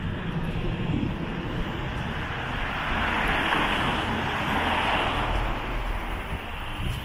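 A vehicle passing by over a low rumble of city traffic: its noise swells to a peak about halfway through, then fades.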